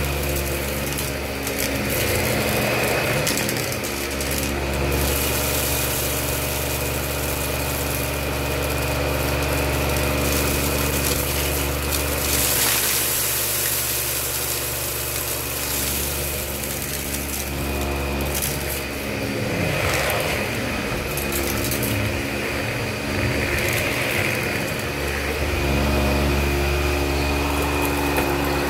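Dyson Ball Multifloor upright vacuum cleaner running steadily, with a constant hum and a high whine. Its low note dips and returns several times as the cleaner head is worked over the carpet, with occasional short crackles as loose rice, candy and rhinestones are sucked up.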